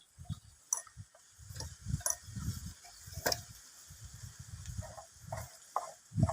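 Irregular clicks, knocks and low thumps of a Stihl 070 chainsaw being handled and checked over by hand, with its engine not running.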